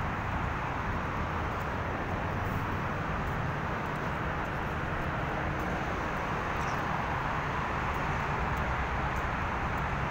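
Steady traffic noise from cars on a wide multi-lane city road, an even hum with no single vehicle standing out.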